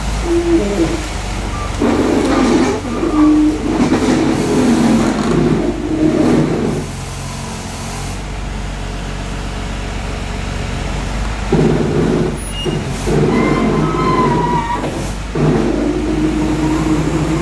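Diesel engine of a Case 621D wheel loader running steadily and working harder in two long stretches, from about two seconds in and again from past the middle, as it lifts a grapple bucket loaded with tree branches.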